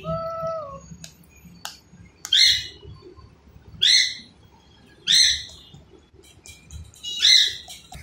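Alexandrine parakeet giving four loud, harsh squawks, each short and falling, about one and a half seconds apart.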